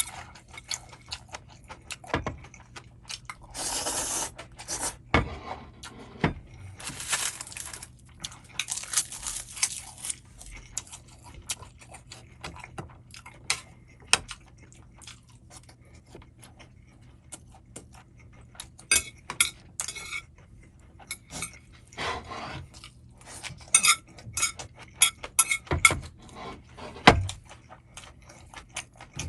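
Someone eating Chapagetti noodles: utensils clinking and tapping against a bowl again and again, with a few short, noisy rushes that sound like slurping noodles, and a handful of louder knocks near the end.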